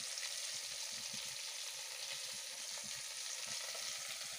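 Food sizzling in a frying pan: a steady, even hiss, with a few faint soft knocks.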